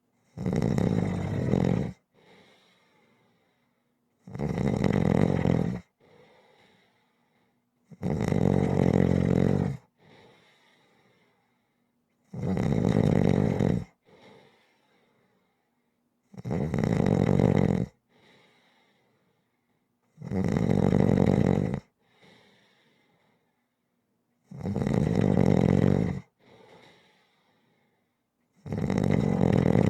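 Snoring in a steady rhythm: eight loud snores, about one every four seconds, each followed by a short, much softer breath.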